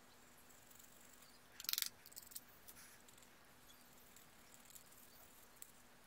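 Wooden toothpick scraping and picking grime from the gaps between the rubber keys of a Sony TV remote control: a short burst of scratchy clicks about two seconds in, then a few faint ticks, otherwise near silence.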